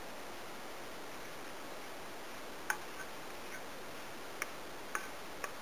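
A few light, sharp clicks, about six from the middle on, over a steady faint hiss: a mixing bowl and utensil knocking lightly as chocolate cheesecake batter is poured from the bowl into a metal springform pan.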